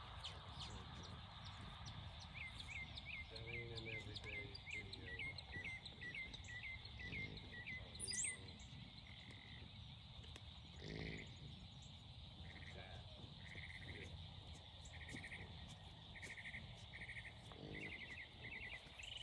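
Birdsong in open pasture: a bird sings a run of short down-slurred chirps, about three a second, followed by short buzzy trills repeated every second or so, with one sharp high note about eight seconds in.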